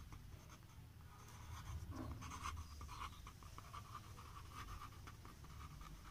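Pen writing on paper: a run of short, faint scratching strokes as words are written out by hand, over a low steady hum.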